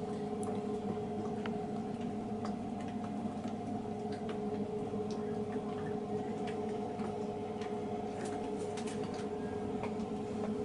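A steady mechanical or electrical hum, with a few faint, scattered ticks and clicks.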